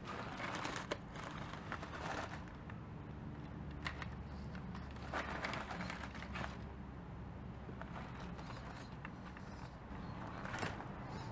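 A 1/10 scale RC rock crawler with a brushless motor drives its gears over rocks, with a steady low hum. Over the hum come bursts of clicking, knocking and scraping as the tyres scrabble on stone, at the start, around the middle and near the end.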